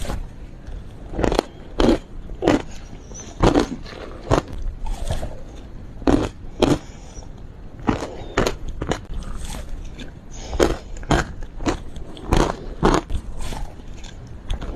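Teeth biting and crunching through frozen matcha ice: repeated sharp crunches at an uneven pace, a little more than one a second, with softer chewing between them.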